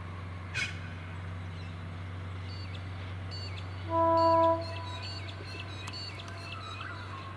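A train horn gives one short, single-note blast about four seconds in, over a steady low engine hum. Birds chirp around it.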